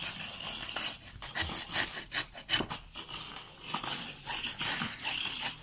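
Food being scraped and grated by hand in the kitchen: a quick, uneven run of rasping strokes.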